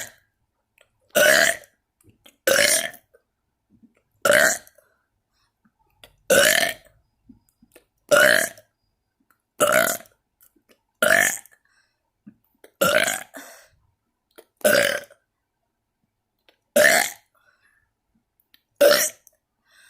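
A person burping deliberately in a steady series: about a dozen short, loud burps, each about half a second, one every second and a half or so, with silence between.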